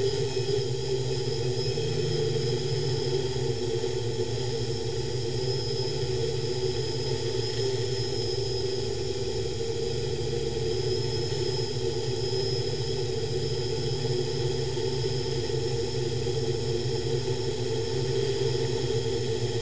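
Electric motors and propellers of a DIY octocopter in steady flight, heard from a camera mounted on its frame: an even buzzing hum with a thin high whine above it.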